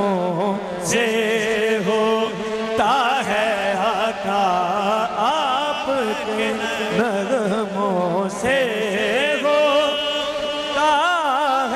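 Music of a devotional naat: a sung melody of long, ornamented notes that waver in pitch, with steadier held tones beneath.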